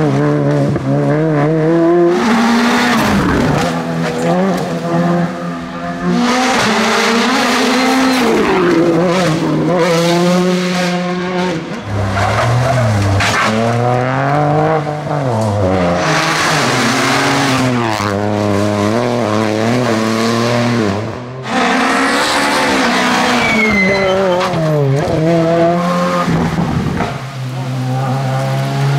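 Rally cars driven flat out one after another, among them a Peugeot 106 and a Suzuki Swift. The engines rev hard, their pitch climbing and dropping with each gear change and lift, with gravel sprayed from the tyres through the corner.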